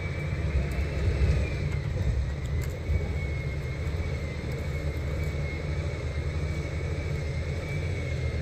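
Steady low engine rumble with a thin, high whine that wavers slightly in pitch.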